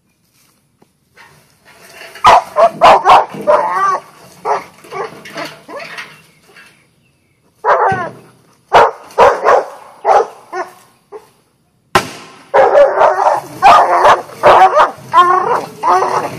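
Dog barking and yelping in rapid bursts, with whines in between, excited by fireworks. The barking starts about two seconds in, pauses briefly midway, then comes thick and fast again.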